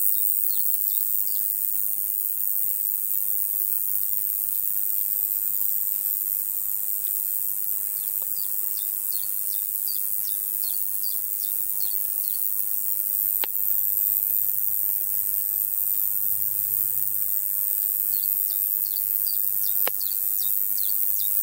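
Roesel's bush-cricket stridulating: a continuous, very high-pitched buzzing song that holds steady without a break. Runs of short, quick chirps come and go over it.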